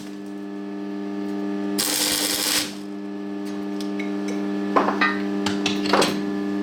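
Welder humming steadily while tack-welding a small washer onto a wheel, with a loud burst of arc hiss about two seconds in and a few sharp crackles near the end.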